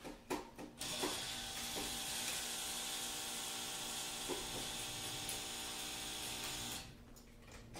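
Manual portable typewriter keys striking now and then, a handful of sharp clacks. For about six seconds a steady hiss with a low hum starts and stops abruptly and is louder than the keys.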